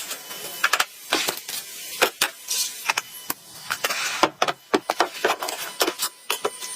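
A quick, irregular run of sharp clicks and knocks, as of hard objects being handled.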